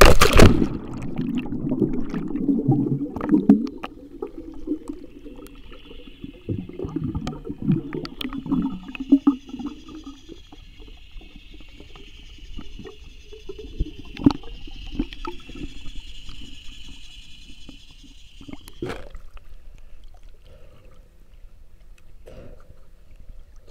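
A body plunging into a swimming pool with a loud splash, followed by about ten seconds of muffled underwater bubbling and sloshing picked up by a camera under the water. After that it grows quieter, with a steady faint hiss and a sharp knock near the end.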